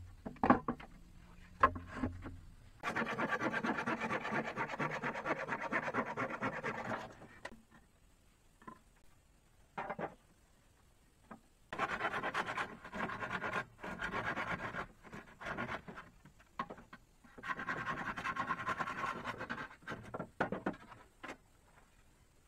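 A hand tool rasping on wood in quick, even strokes, in three spells of a few seconds each, with scattered knocks in between.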